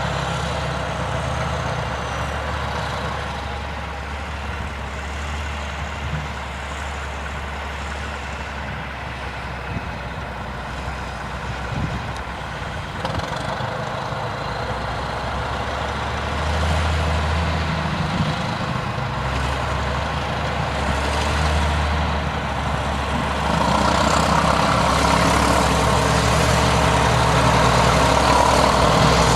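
Heavy Caterpillar diesel earthmoving machinery, a scraper and bulldozer at work, running steadily, growing louder about three-quarters of the way through.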